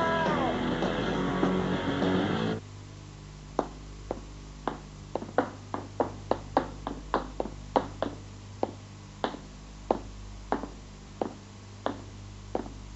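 Rock guitar music cuts off abruptly about two and a half seconds in. A run of sharp footsteps on hard stairs follows, about two to three a second, over a steady low hum.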